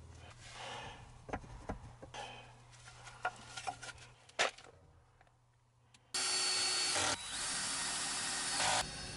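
Clicks and knocks of tools and wood being handled, then about six seconds in a power drill starts and runs steadily, dipping in speed for a moment about a second later as it drives screws into the wood.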